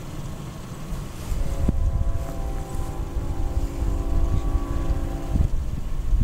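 Distant locomotive air horn sounding one long steady chord of several tones for about four seconds, starting a couple of seconds in, over a low wind rumble on the microphone.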